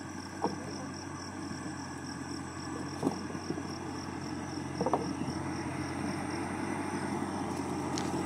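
Massey Ferguson farm tractor's diesel engine running steadily under load as it hauls a wagon across a field, growing slightly louder, with a few light knocks.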